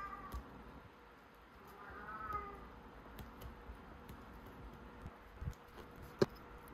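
Two short pitched animal calls, one right at the start and one about two seconds in, then a single sharp click near the end.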